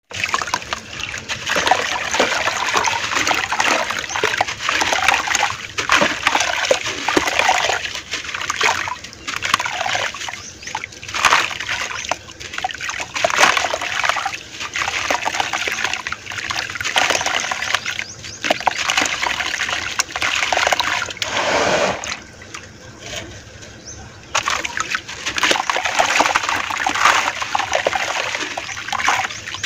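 Dry red dirt crumbled by hand into a bucket of water: gritty crumbling and splashing as chunks and grains drop in, with hands sloshing through the muddy water. There is a quieter pause about three quarters of the way through.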